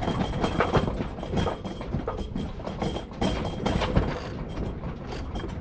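Irregular rattling, clicking and knocking of a sailboat's rigging and deck fittings as the anchored boat works in the wind and chop, over low wind rumble on the microphone.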